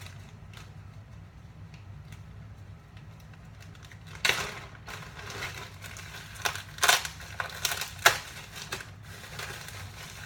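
Packing material crinkling and rustling in a run of sharp bursts as beer cans are pulled out of a shipping box, starting about four seconds in, over a low steady hum.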